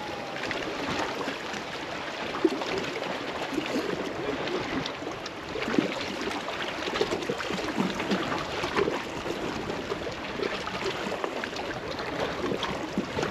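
Small waves lapping and water trickling and gurgling among shoreline rocks, a steady irregular splashing with a couple of sharper ticks.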